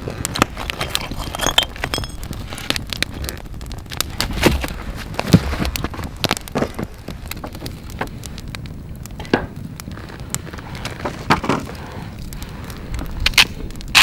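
Wood campfire crackling, with irregular sharp pops over a steady low hiss and a few louder snaps near the end.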